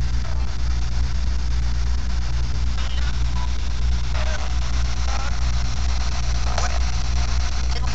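Steady low electrical hum under a constant faint hiss, with a few faint brief sounds in the middle.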